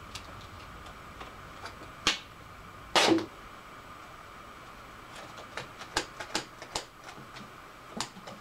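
Black duct tape pulled off the roll in two short rips, the second about three seconds in the longest and loudest, then a run of scissor snips and clicks as the scissors work at the duct tape, which is really hard to cut.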